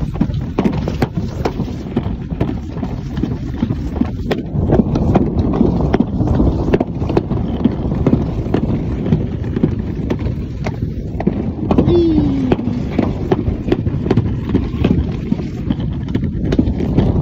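Plastic alpine slide sled running down its track: a steady rumble with frequent quick clicks and knocks as it rides over the track's surface and seams.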